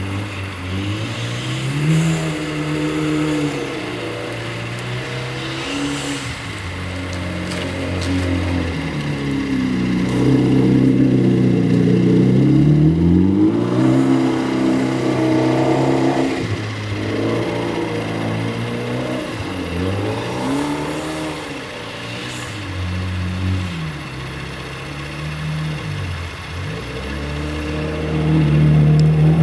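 A 2008 Mitsubishi Lancer Evolution X's turbocharged 2.0-litre four-cylinder, breathing through an aftermarket Buschur catback exhaust, revving up and dropping back again and again as the car slides through snow in donuts and drifts. It is loudest about ten to sixteen seconds in and again at the very end.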